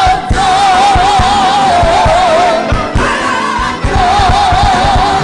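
Gospel choir and live band performing an up-tempo song: voices hold long notes with vibrato in two phrases over a steady drum beat.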